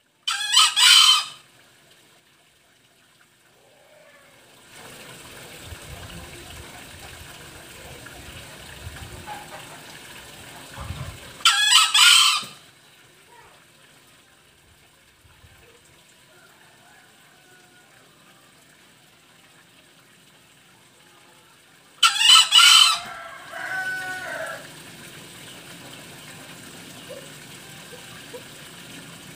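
Male green junglefowl crowing three times, about ten seconds apart, each a short, high, sharp crow lasting about a second. After the third crow comes a softer, lower call.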